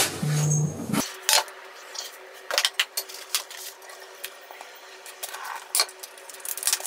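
Kitchen handling sounds: a sheet of cooking paper rustling and crinkling as it is handled, with light clicks and taps on the counter, over a faint steady hum. A louder low tone in the first second stops abruptly.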